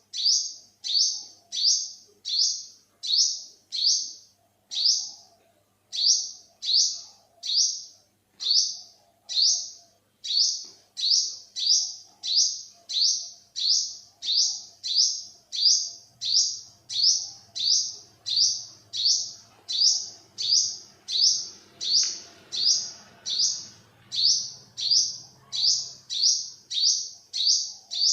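Olive-backed sunbird (yellow-bellied sunbird) calling: a single short, high, downward-sliding chirp repeated steadily about twice a second, with a few brief pauses.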